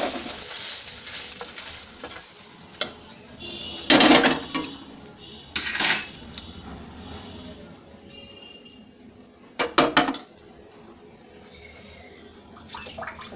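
Fried chicken being tipped out of a hot iron kadai into a bowl: the sizzle of the oil fades over the first couple of seconds, then come several sharp clanks of metal on metal, the loudest about four seconds in.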